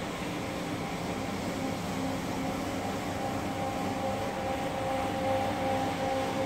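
Single-disc rotary floor machine running steadily as its pad spins shampoo into a carpet. It gives a steady motor hum with a few held tones over a scrubbing hiss, growing slightly louder near the end.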